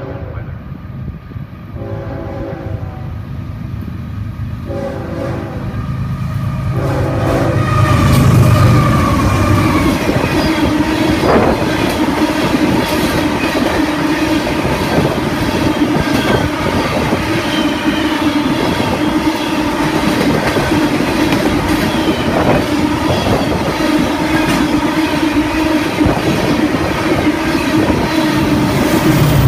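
A Union Pacific freight train horn sounds several blasts as the train approaches. The lead GE diesel locomotives then pass close by, and rock hopper cars roll past in a loud, steady run of wheel clatter with a steady whine over it.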